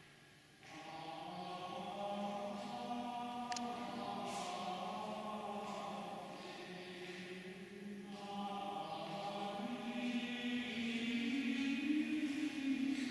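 Slow choral chant of sustained voices holding long notes, growing louder near the end.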